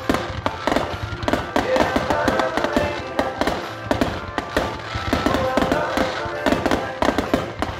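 Fireworks aerial shells and ground effects going off in quick succession, many sharp reports a second, with the show's music playing alongside.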